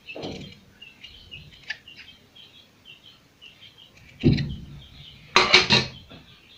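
Scissors being handled while cutting a point on fabric bias tape: a soft knock, a duller thump about four seconds in, and a quick run of sharp clicks near the end, the loudest sound. Birds chirp in the background throughout.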